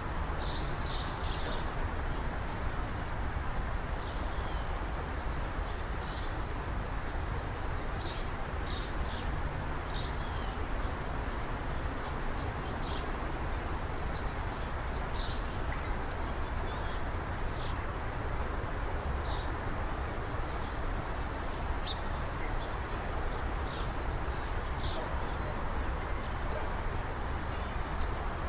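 Small birds chirping in short, separate high calls, every second or two, over a steady background hiss.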